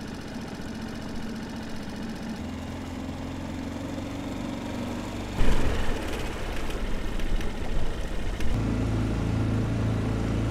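Small outboard motor on an inflatable dinghy running steadily under way on the river. A sudden louder rush of noise comes about halfway through, and the motor's low hum grows stronger near the end.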